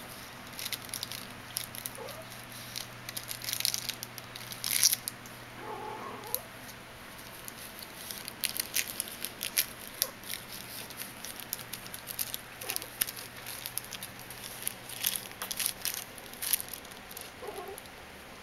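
Crackly crinkling and rustling of a shiny metallic ribbon bow as a tiny Persian kitten bites and paws at it, in quick irregular bursts, with a few faint kitten mews.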